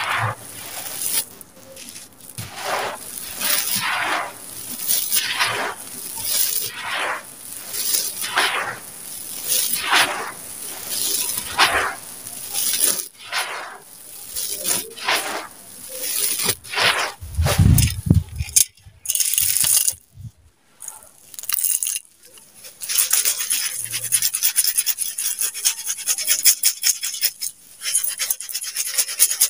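Dry gritty sand-cement crumbled by hand and poured onto a pile: a string of crunching, hissing pours about once a second, with a low thump just past halfway. Near the end comes a dense, steady patter of grit and small stones pouring from a steel bowl.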